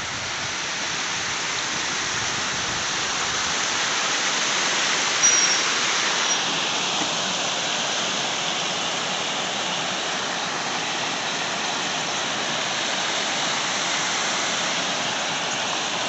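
Water pouring steadily over the face of a low concrete causeway and churning white into the stream below: a continuous even rush of falling water. A brief high squeak cuts in about five seconds in.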